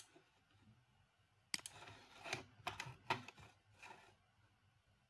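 Faint computer mouse and keyboard clicks: a sharp click right at the start, then another about a second and a half in, followed by a loose cluster of soft clicks and rustles until about four seconds in.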